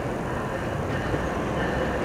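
Amtrak California Capitol Corridor bilevel passenger train rolling in cab-car first, a steady rumble of wheels on the rails, with a faint high squeal coming in near the end.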